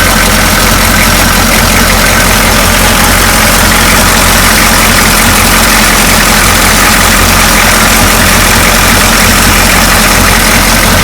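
6.2-litre V8 diesel engine idling steadily and loudly.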